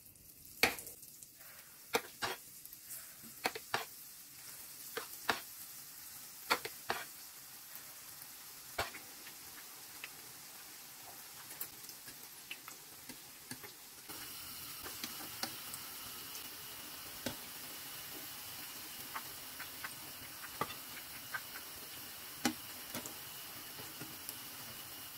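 Pumpkin fritters deep-frying in hot oil in a frying pan: a steady sizzle that gets louder about halfway through. Frequent sharp clicks and taps, most of them in the first few seconds, come from the spoon, forks and wire skimmer against the pan.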